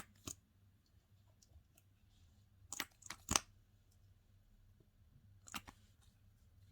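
Slime being handled, giving a few short, sharp crackling pops: two near the start, a quick cluster of three about three seconds in, and one more later.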